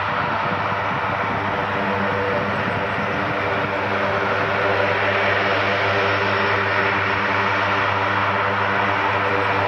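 Lockheed CC-130J Hercules taxiing, its four Rolls-Royce AE 2100 turboprops running with a steady propeller hum over a broad rush of turbine noise. It grows slightly louder about halfway through as the aircraft comes past.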